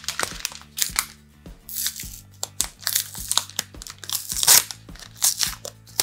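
Kraft-paper parcel wrapping crinkling and rustling in irregular crackles as it is handled and turned, with background music playing softly underneath.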